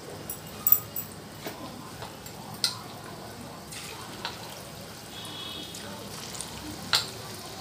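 Batter-coated chicken 65 pieces sizzling and bubbling as they deep-fry in hot oil in a kadai, with a few sharp clicks and spatters as more pieces are dropped in one by one.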